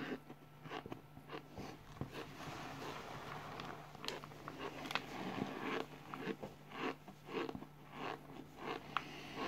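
Dry cornstarch crunching and crackling in irregular soft bursts as it is scooped, squeezed by hand and chewed.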